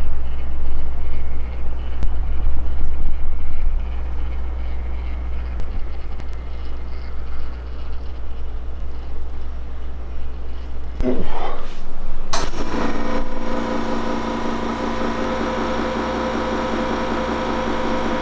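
A steady low machine hum. About eleven seconds in, a motor spins up with a rising whine, then runs with a steady tone and a hiss of noise.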